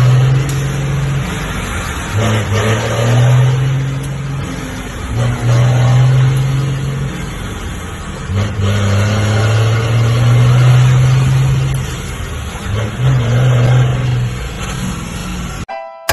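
Heavy vehicle's engine brake (freio motor) working in four stretches of one to three seconds each, a loud, deep, steady engine drone that drops lower between stretches. It cuts off abruptly near the end.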